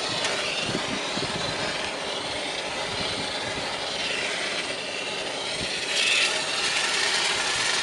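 Fan-cleaning equipment working on a greasy exhaust fan: a steady rasping, hissing noise that swells and fades, louder about six seconds in.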